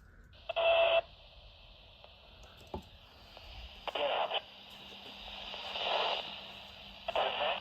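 A weather radio receiving a faulty NOAA Weather Radio broadcast from transmitter WNG549: a steady hiss broken by four short bursts of harsh, garbled noise instead of the normal voice. The broken signal is the sign of a fault at the transmitter, a technician issue.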